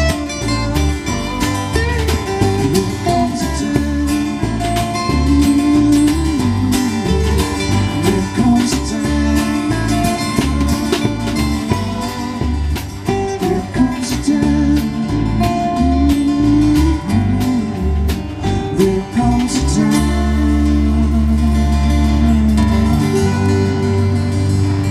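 Live acoustic band playing: banjo, strummed acoustic guitar, upright bass and drum kit, with a lead vocal. Over the last few seconds the band holds one long sustained chord.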